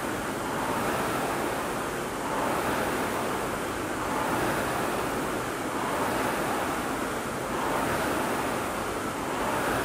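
Rowing machine's fan flywheel whooshing under steady rowing, surging with each stroke about once every two seconds.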